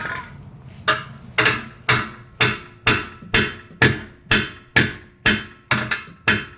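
Hammer striking a metal exhaust part in a steady series of about a dozen blows, roughly two a second, each with a short metallic ring, as the reinstalled muffler is driven into place.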